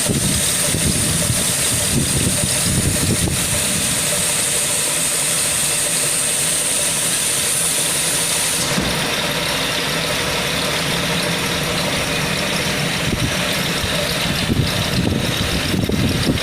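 Woodworking CNC router with linear tool changer running: a steady high whine over a low machine rumble. The high whine cuts off about halfway through, leaving the lower machine noise running.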